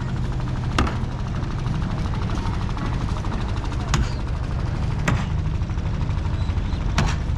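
A steady low rumble, with several sharp clicks spaced irregularly a second or more apart.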